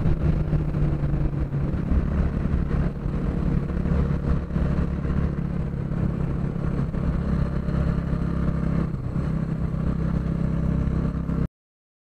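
Bajaj NS 160's single-cylinder engine running steadily at riding speed, heard from on the bike along with road noise. The audio cuts out completely for a moment near the end.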